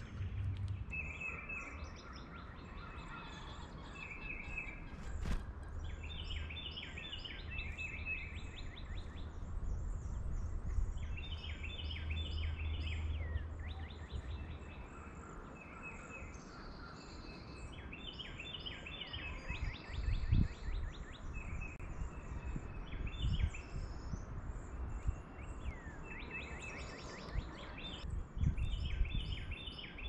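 Several songbirds singing, short phrases of quick repeated notes coming every few seconds, over a low background rumble with a few low thumps.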